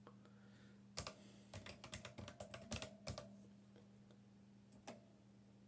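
A quick run of keystrokes on a computer keyboard about a second in, lasting a couple of seconds, then one more key press near the end, over a faint steady electrical hum.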